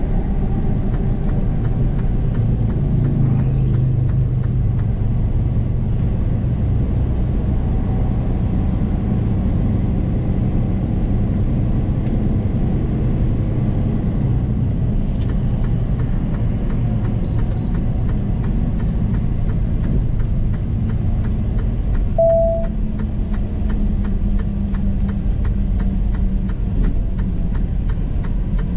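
Semi truck running, a steady low drone of engine and road noise, with a short single beep about two-thirds of the way through.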